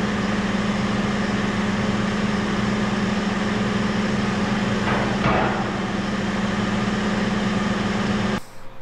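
An engine running steadily at an even, low hum, with a brief metallic knock about five seconds in. The sound cuts off abruptly near the end.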